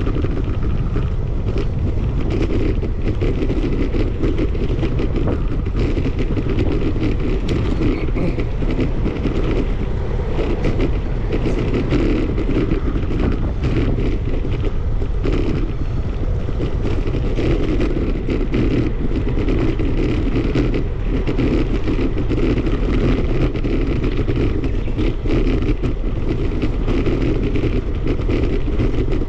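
Steady wind rumble buffeting the microphone of a camera riding on a moving bicycle, with no let-up.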